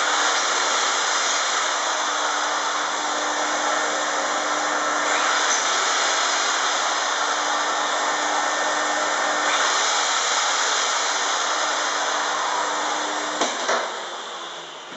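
Henry vacuum cleaner running steadily to suck up dust while an electric drill with a high-speed bit bores holes through plasterboard into soft block. The noise winds down over the last second or so.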